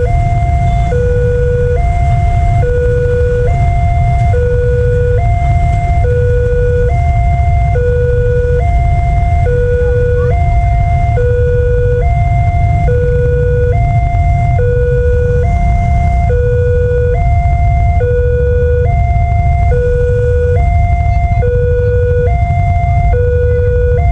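Railway level-crossing warning siren sounding continuously: an electronic two-tone signal alternating evenly between a lower and a higher note, each held a little under a second. A steady low rumble runs underneath.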